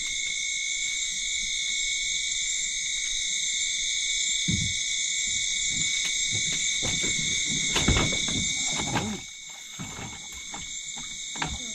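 Steady night chorus of calling insects and frogs, a high-pitched ringing at several pitches at once. Irregular knocks and rustles of handling come in the middle and stop about nine seconds in.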